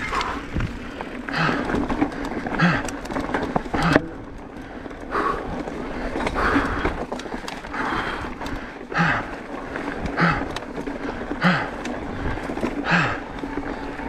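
A mountain biker breathing hard in a steady rhythm, a voiced exhale a little more than once a second. Under it are a constant wind rumble on the microphone and the clicks and rattle of the bike riding over a rocky dirt trail.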